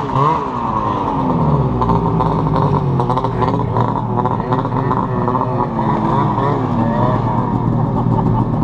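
Two-stroke snowmobile engine running close by, its pitch rising and falling again and again as the throttle is blipped, over steady track and snow noise.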